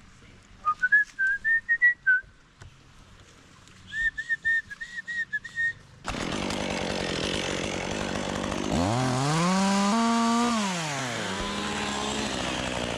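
A run of short, high whistled chirps, then a two-stroke chainsaw starts running suddenly about six seconds in. Near the end it revs up once, holds briefly at high speed and drops back.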